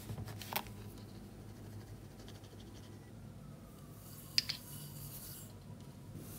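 A plastic measuring spoon scraping into granulated sugar in a glass jar, then sugar sprinkling from the spoon onto orange peels in a stainless steel pot with a faint hiss. Two sharp taps a little over four seconds in.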